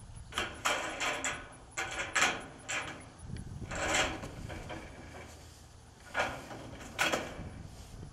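Corrugated metal roofing panel being pushed along a steel frame rail: a string of irregular scrapes and knocks, the longest scrape about four seconds in.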